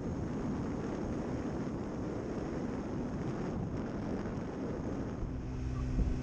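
Wind buffeting the microphone of a moving motor scooter, a rough low rush. About five seconds in, a steady engine hum comes through under the wind and the sound grows a little louder.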